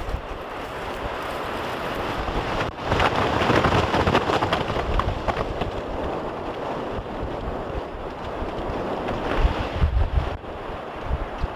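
Wind buffeting the microphone with a steady, surf-like rushing noise that swells louder about three seconds in, and gusty low thumps near the end.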